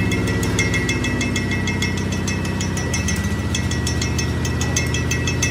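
Steady hum of a running workshop machine motor, with rapid, regular metallic ticking over it.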